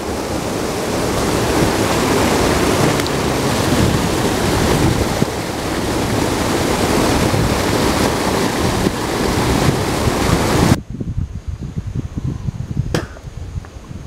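Creek waterfall pouring into a churning plunge pool: a loud, steady rush of water. It cuts off suddenly about eleven seconds in, leaving a much quieter stretch of low bumps and a single sharp click.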